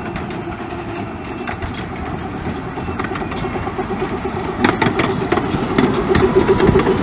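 Two 15-inch gauge steam locomotives coupled together run slowly past at a platform, a steady working sound growing louder as they near. From about halfway, the wheels click over the rail joints.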